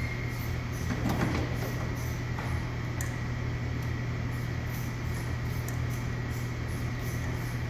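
Steady low hum with faint regular ticking and no engine cranking: the Beetle's starter does not turn the engine over because the battery is dead.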